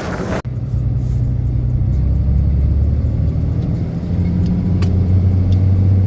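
Car engine and road noise running steadily as a low drone, starting after a sudden cut about half a second in.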